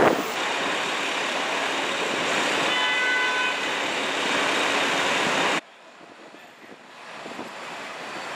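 Manhattan street traffic heard from the top deck of a moving tour bus, a steady noisy rush with a vehicle horn sounding briefly in the middle. About two-thirds through the noise cuts off suddenly and a quieter traffic hum slowly builds back up.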